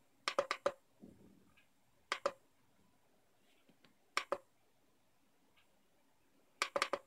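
Rotary adjustment knob of a Gophert CPS-3205E bench power supply clicking through its detents as the current limit is turned down. The clicks come in four short clusters of two to four sharp clicks each.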